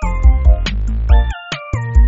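Electronic music: a synth melody that slides between notes over heavy bass and a steady beat.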